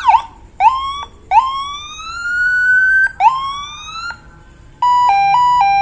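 Electronic siren module (CJB100A) switching through its tones: three rising whoops, a short one, a long one and a medium one, each cut off abruptly. Then, about five seconds in, a two-tone high-low that alternates about three times a second.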